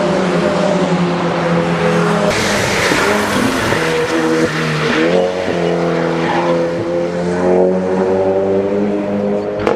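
Turbocharged race car engine running hard, its pitch dipping and climbing again about halfway through, with a rush of hissing noise, possibly tyre noise, laid over it in the middle.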